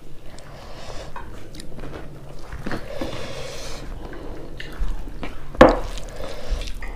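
Rice being tipped from a glass bowl onto a plate and squished and mixed by hand, with small wet clicks. A single sharp knock comes a little past halfway.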